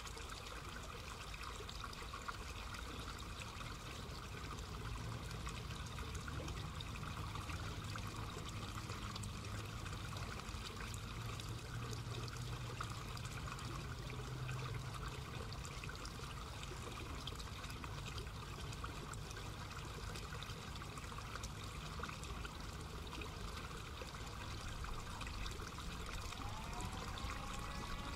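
A steady hiss, with a low hum for several seconds in the middle as the electric train pulls away from the station. Near the end a noon siren starts to wind up, its pitch rising and then holding.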